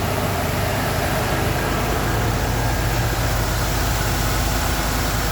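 A 2010 Ford truck's engine idling steadily, now running with its replaced fuel pump fuse after it would only crank and not start.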